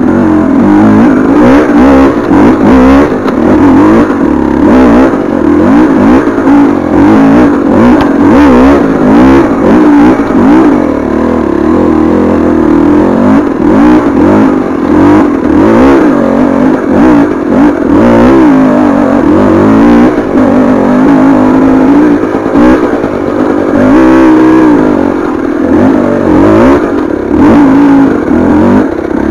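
KTM 300 TPI single-cylinder two-stroke dirt bike engine revving hard under load on a hill climb, its pitch rising and falling over and over.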